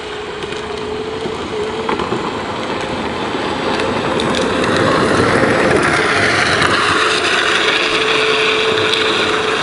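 Battery-powered Lightning McQueen ride-on toy car driving on asphalt: a steady electric motor and gearbox whine over the crunching rattle of hard plastic wheels on rough pavement. It grows louder about halfway through as the car comes closer.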